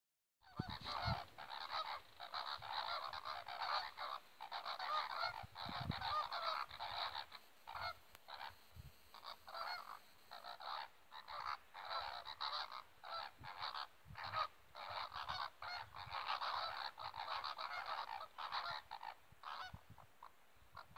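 A flock of greater flamingos honking continuously, many goose-like calls overlapping, with brief lulls: the calling that goes with their group courtship display.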